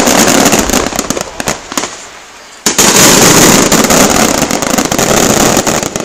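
Fireworks display: aerial shells bursting with loud, rapid, dense crackling. The first volley dies down about two seconds in, and a second starts abruptly just before three seconds in.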